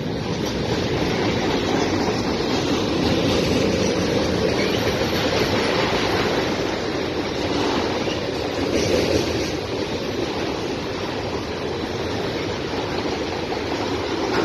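Freight train cars rolling past close by: a steady rolling rumble and rush of steel wheels on the rails as a string of autorack cars goes by.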